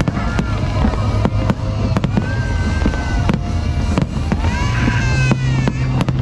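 A fireworks display going off: a steady run of sharp bangs, two or three a second, over a continuous low rumble.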